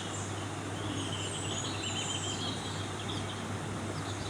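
Birds chirping and calling over a steady outdoor background noise, with a constant low hum underneath.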